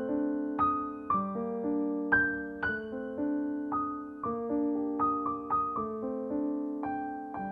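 Background solo piano music: slow, gentle notes and chords, a new one struck about twice a second and left to ring and fade.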